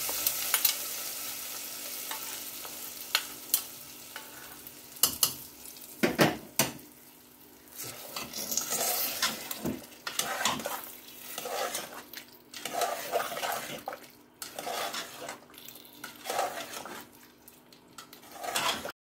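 Hot coconut-oil tempering of shallots and dried red chillies sizzling as it is poured into the cooked beef curry, the sizzle fading away over the first few seconds. A few sharp knocks of a spoon on the pot follow, then repeated bursts of stirring as the spoon scrapes through the thick curry, cutting off just before the end.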